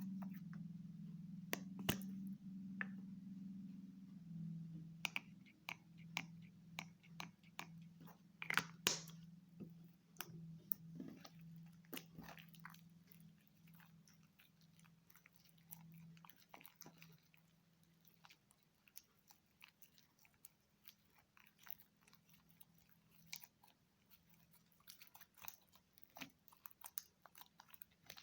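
Slime being squeezed and worked by hand, giving irregular small clicks, crackles and pops. A low steady hum sits underneath in the first half and fades out.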